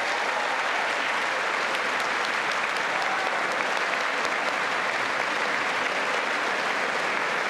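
Large audience of lawmakers applauding steadily after a State of the Union line, fading out just after the end.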